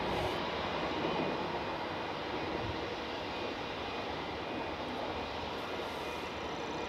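Airbus A319 jet engines running at idle as the airliner taxis in, a steady rumble with a faint high whine.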